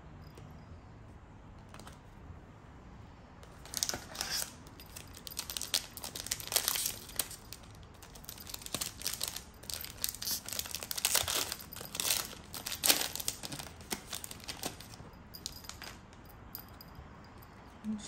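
Foil Panini Prizm card-pack wrappers crinkling and tearing as packs are opened, with cards being handled. The sound comes in irregular bursts, starting a few seconds in and dying down near the end.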